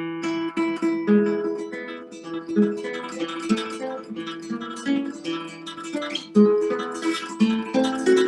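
Solo guitar playing a waltz: plucked notes ringing over a held note.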